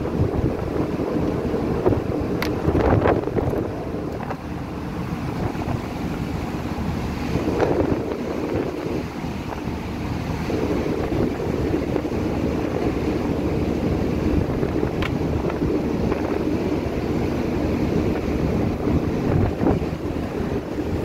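Gale wind blowing hard across the microphone, a steady rushing noise that swells briefly in gusts.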